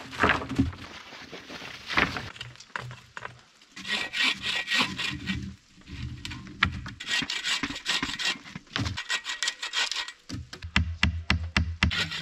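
Bow saw cutting through a thin wooden pole in two runs of back-and-forth strokes with a short pause between. A few knocks of wood come near the start, and a quicker run of sharp strokes comes near the end.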